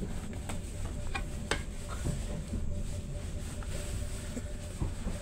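Inside a Stadler FLIRT ER160 electric multiple unit: a steady low rumble with a thin high whine and a lower hum, broken by a few light clicks and knocks.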